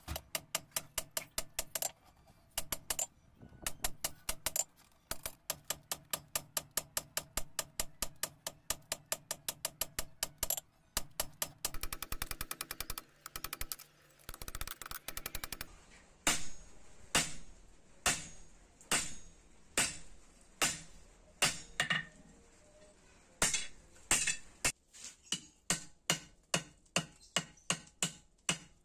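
Hand hammer striking a red-hot steel sickle blade on an anvil, forging it: a quick run of ringing blows several a second, a burst of very fast light taps around the middle, then slower, louder blows about one to two a second.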